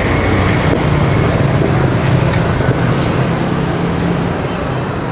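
Steady loud roar and hiss of gas burners under bánh xèo (Vietnamese crispy pancake) pans, with a low hum beneath it.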